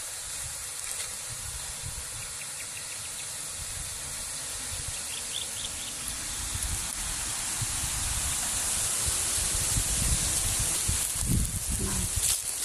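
Steady high outdoor hiss with irregular low rumbling, like wind on the microphone, getting louder in the second half.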